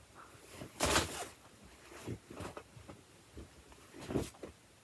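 Faint, scattered rustling and handling noises from a hat and jacket being taken off, with the clearest rustle about a second in.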